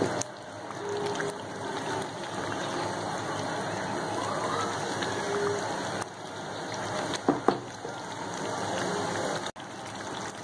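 Thick spinach-and-potato curry simmering and bubbling in a pan as it is stirred with a wooden spatula, a steady wet sizzling hiss. Two sharp knocks come about seven seconds in.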